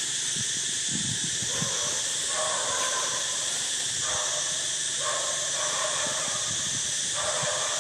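Baby long-tailed macaque giving a run of about five drawn-out whimpering cries, over a steady high hiss of insects.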